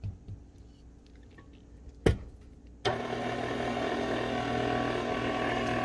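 A sharp knock about two seconds in, then an electric mixer switches on about three seconds in and runs steadily with a low motor hum, blending the flour mixture into the pumpkin batter.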